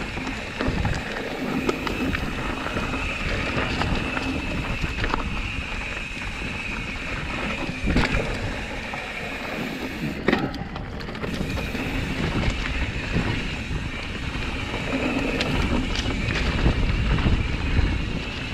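Mountain bike riding fast down dirt singletrack: tyres rolling over dirt, with the bike rattling and knocking over bumps and roots. A low wind rumble on the microphone runs under it.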